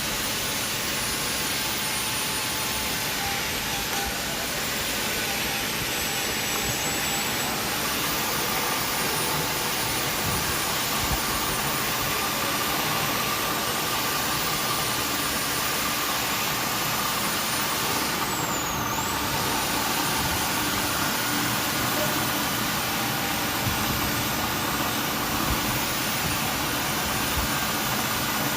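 CNC milling machine running an end mill through plastic to cut a slot: a steady machining noise with a high whine that dips briefly in pitch about every five or six seconds.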